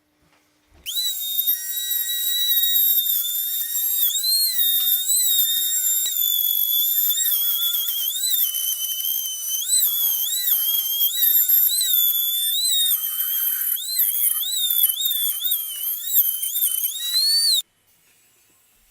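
High-pitched whine of a small high-speed power tool, its pitch dipping and recovering again and again. It starts abruptly about a second in and cuts off suddenly near the end.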